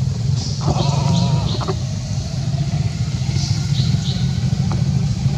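A baby macaque gives a short, wavering bleat-like cry about a second in. A steady low hum runs under it throughout, and faint high chirps recur a few times.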